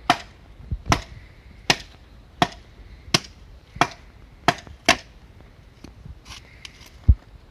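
Firewood being chopped with a blade: about eight sharp strikes roughly every three-quarters of a second, then a few lighter taps near the end.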